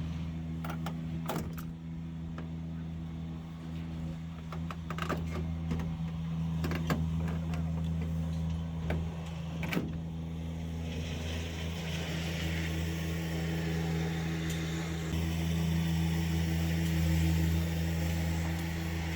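A steady low machine hum, with scattered sharp clicks and knocks during the first half and a brighter hiss joining from about halfway through.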